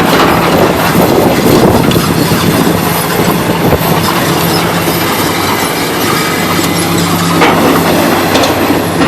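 Excavator running steadily, its diesel engine working with repeated knocks and clanks from the machine.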